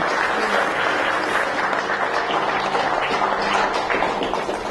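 Audience applauding, a dense steady clapping that begins to fade near the end.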